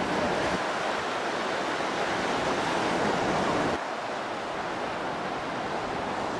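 Sea surf washing and breaking, with wind rushing across the microphone. About four seconds in the sound drops abruptly to a slightly quieter, less boomy wind and surf hiss.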